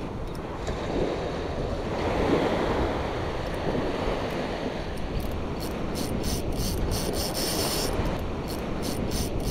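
Surf washing onto a sandy beach, with wind buffeting the microphone. From about halfway, a spinning reel being cranked gives a fast run of light ticks.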